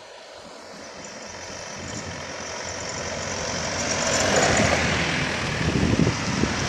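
A heavy road vehicle approaching on a climbing curve, its engine and tyre noise growing steadily louder over several seconds.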